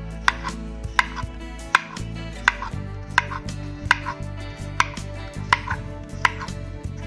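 Kitchen knife slicing a cucumber into rounds on a wooden cutting board: a sharp tap of the blade on the board about every three-quarters of a second, nine cuts in all.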